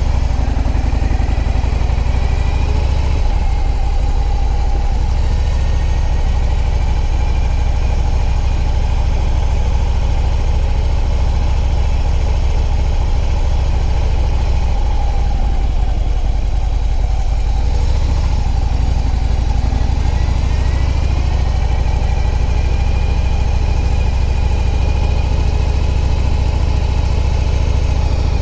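Harley-Davidson Electra Glide Ultra Limited's V-twin engine running steadily as the motorcycle is ridden at low speed, its pitch dipping and rising again a few times.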